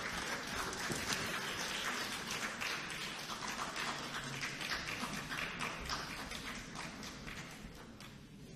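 Applause from legislators in a large chamber: many hands clapping at once, thinning and fading toward the end.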